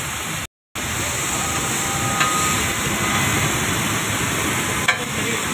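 Steady hissing background noise that cuts out completely for a moment about half a second in, with a faint click a couple of seconds in and another near the end.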